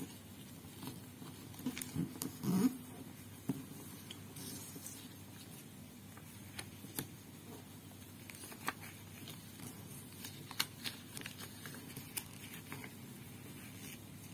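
Origami paper being folded and creased by hand: soft rustling with small sharp crackles and taps, the loudest crinkling about two to three seconds in.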